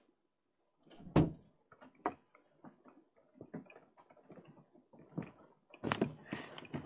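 A loud thump about a second in, then scattered light knocks and clicks in a small room, and rustling handling noise near the end as the camera is picked up.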